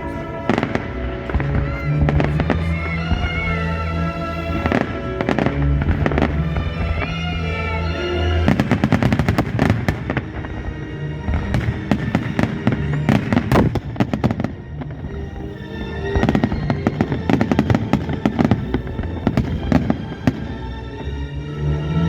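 Fireworks salute going off in a rapid, irregular series of bangs and crackles, thickest in the second half, with music playing under it.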